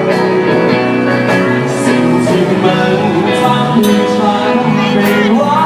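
A person singing a song over acoustic guitar strumming.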